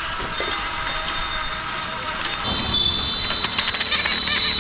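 Bicycle bell ringing repeatedly over the steady noise of street traffic, with high ringing tones and quick metallic clicks that grow busier in the second half.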